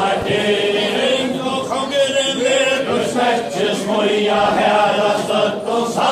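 A crowd of people singing a chant-like song together in unison, with long held notes.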